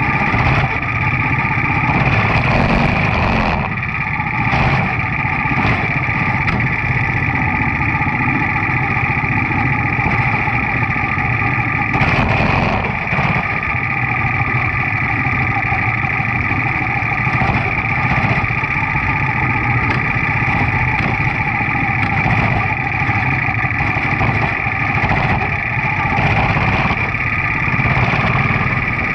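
Quarter midget race car's single-cylinder Briggs & Stratton Animal engine running at a steady, even pitch, heard from on board the car.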